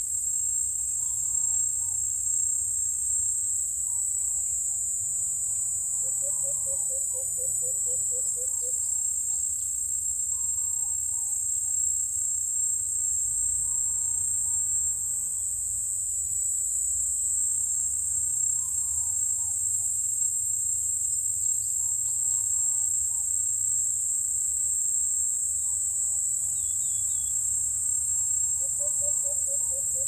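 Steady, high-pitched chorus of insects, with faint short bird calls every couple of seconds and, twice, a low trill of rapid notes: once about six seconds in for a few seconds and again near the end.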